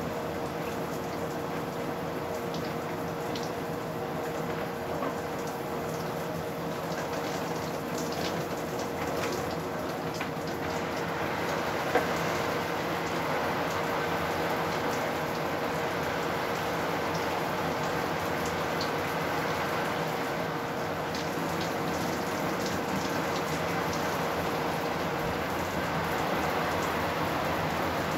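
Steady hiss of noise with a faint constant hum and scattered tiny clicks, one sharper click about twelve seconds in, after which the hiss is slightly louder.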